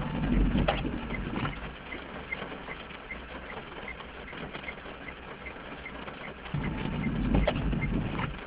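Car windscreen wiper making two sweeps across a rain-spotted windscreen, one at the start and one about seven seconds later, heard from inside the car, with light rain pattering on the car between sweeps.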